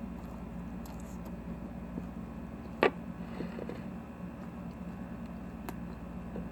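Steady low hum, with one sharp click about three seconds in and a fainter click near the end.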